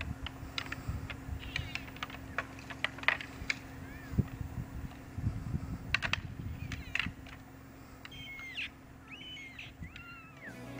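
Bull elk sparring, their antlers clacking and knocking together in irregular sharp clicks. Near the end come a few short high calls that rise and fall.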